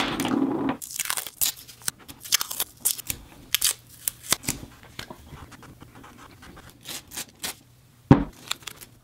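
Masking tape being pulled from the roll and torn into strips: a run of short, sharp, irregular rips, with a dull thump just after eight seconds.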